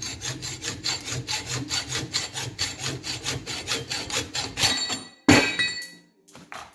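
Hacksaw cutting through a steel door hinge clamped in a vise, in quick, even strokes. The sawing stops about five seconds in, followed by one louder scrape or clank.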